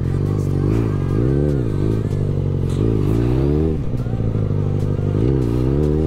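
Yamaha XJ6's inline-four engine, fitted with a can-type aftermarket exhaust, revved up and down in several short throttle pulls during wheelie attempts, then held at a steady pitch and rising again near the end.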